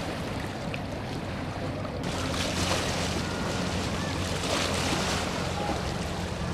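A boat engine drones steadily under water rushing and wind buffeting the microphone. The rushing grows louder about two seconds in.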